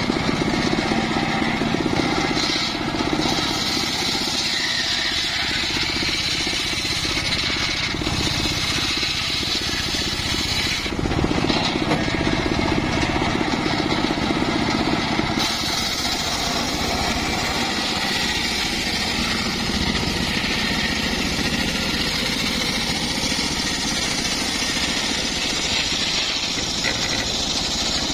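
Homemade engine-driven circular sawmill running steadily, its large blade ripping a log lengthwise into boards.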